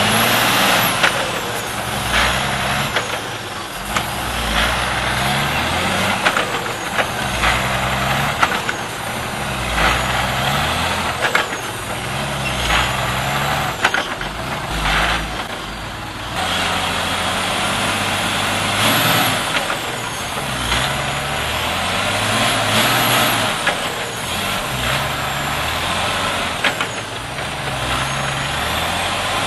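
Heavy log truck with a full load of timber working slowly through deep mud, its diesel engine labouring under load, with frequent knocks and clunks and a faint high whine that rises and falls now and then.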